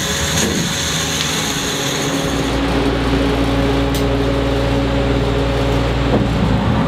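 Electric hoist motor running steadily under load, winching a ram carcass up by its horns; the steady hum starts about two seconds in.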